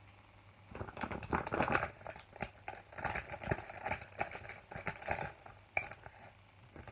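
Rummaging in a zippered fabric makeup bag: irregular rustling with small clicks and clatters of makeup items, starting about a second in.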